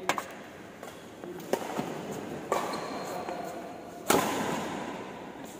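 Badminton rackets striking the shuttlecock in a rally: several sharp pops, the loudest a hard smash about four seconds in that rings on in the hall's echo.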